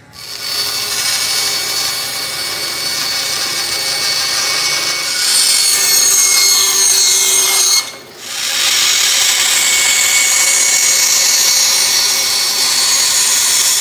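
Bandsaw cutting through a wooden board, a steady, loud sawing noise. It breaks off briefly about eight seconds in, then carries on.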